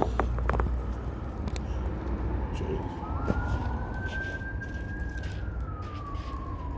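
A siren wailing: its pitch rises about three seconds in, holds, then slowly falls away near the end, over a steady low rumble. A few sharp handling clicks at the start.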